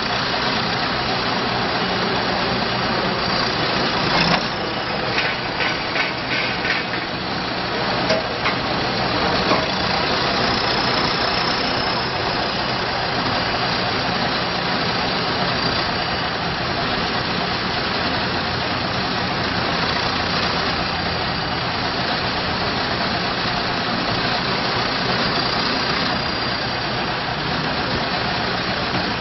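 John Deere 310J backhoe loader's diesel engine idling steadily, with a few clicks and knocks about four to seven seconds in.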